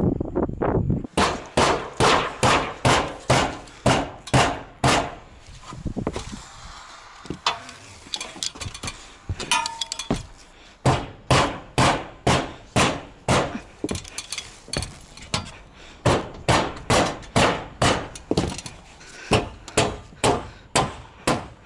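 Rubber mallet repeatedly striking a standing-seam metal roofing panel, about two blows a second, with a short break partway through before the steady blows resume.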